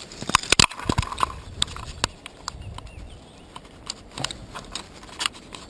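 Irregular sharp clicks and knocks while a small chub is brought in and landed at the river's edge, loudest in the first second.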